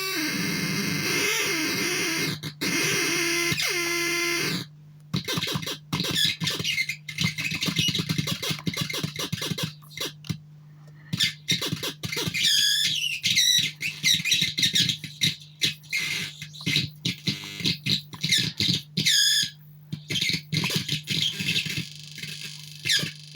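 Electronic synthesizer being played: a sustained, wavering buzzy tone for about the first four and a half seconds, then choppy stuttering bursts of noise and squealing pitch sweeps that start and stop rapidly.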